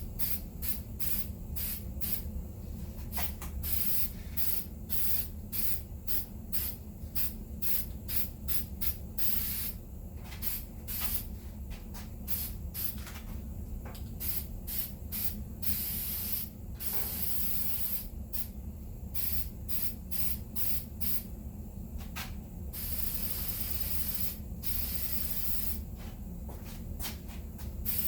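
Aerosol spray can spraying a coat onto the metal tool box in many short hissing bursts, about two a second, with a few longer passes, over a steady low hum.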